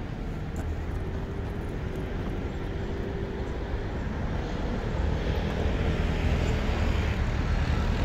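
Outdoor city traffic: a steady rumble of road vehicles with a faint engine drone, growing louder about five seconds in.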